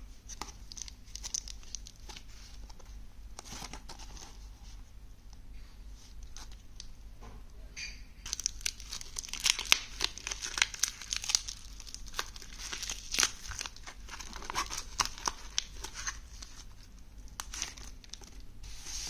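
Plastic bubble-wrap bag crinkling and being pulled and torn open by hand, with a run of louder, denser crackling from about eight seconds in.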